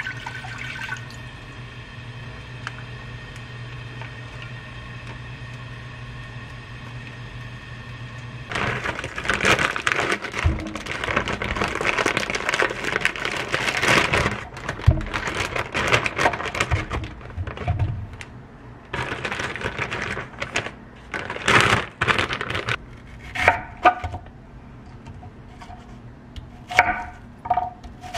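Water running in a small room, in a long spell and then a shorter one, after a steady low hum. A few light ringing clinks follow near the end.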